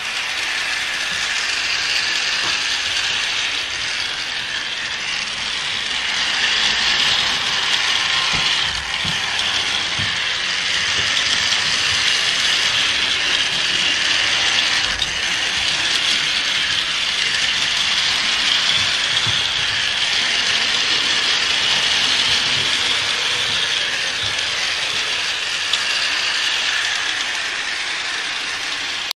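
G scale model handcar's small electric motor and gears whirring steadily as it runs along the track, with a few faint clicks.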